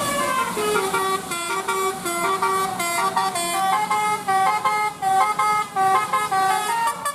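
Indonesian tour bus's telolet basuri horn playing a quick tune of short notes that step up and down in pitch, several a second.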